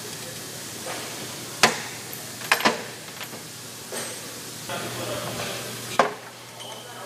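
Sharp metallic clicks and clanks from a long wrench being worked on a propeller hub: one about a second and a half in, two close together around two and a half seconds, and a last one near the end. A steady hiss and low hum run underneath.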